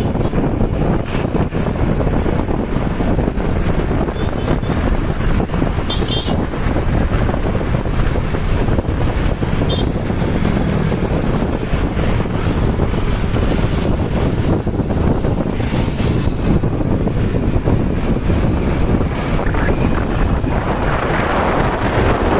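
Tour bus with a loud free-flow exhaust running, a dense, steady engine-and-exhaust noise mixed with wind buffeting the microphone; it gets louder in the last couple of seconds.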